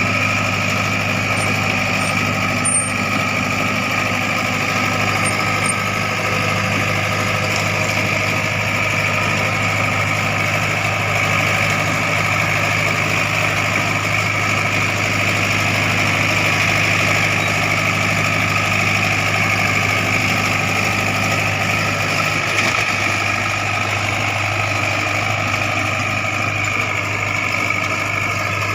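Diesel engine of heavy earthmoving machinery running steadily with an even, unbroken drone.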